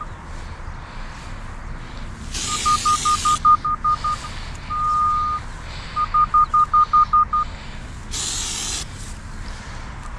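RD8200 locator receiver beeping as it picks up the signal on a buried water main: runs of short high beeps, about six a second, with one longer steady tone between them. Two bursts of hiss, about a second each, come about two and eight seconds in.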